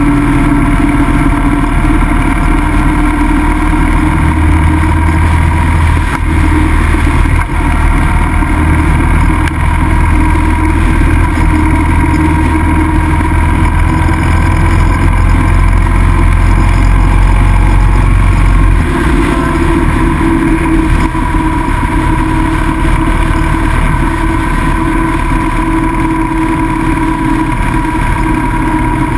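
Cruiser motorcycle's engine running at road speed, heard from on board the bike. About two-thirds of the way through, the deep low end of the engine note drops away while the engine keeps running.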